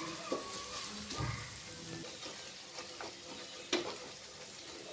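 Wooden spatula stirring and scraping frying onion masala with coriander and mint leaves in a pressure cooker, over a steady sizzle, with scattered clicks as the spatula hits the pot and a sharper knock about three quarters of the way through.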